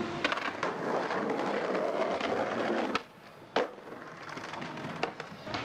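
Skateboard wheels rolling over concrete pavement, a steady rumbling hiss that cuts off suddenly about three seconds in. It is followed by a few sharp, separate clacks of the board.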